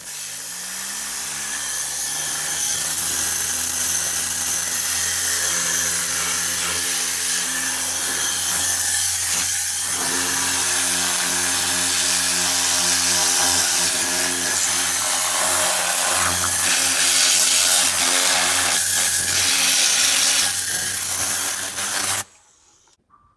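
Vacuum cleaner switched on, its motor rising in pitch as it spins up in the first second, then running steadily with a loud hiss as it sucks up debris, and switched off near the end.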